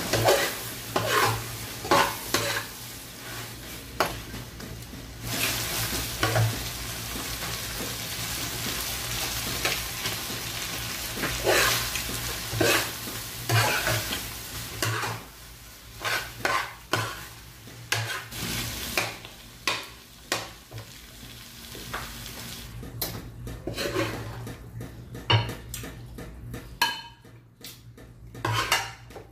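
Chicken gizzards frying and sizzling in a metal frying pan while a spatula stirs and scrapes them, with repeated clicks and knocks of the spatula against the pan. The sizzle thins out near the end as the sauce cooks down and the pan goes dry.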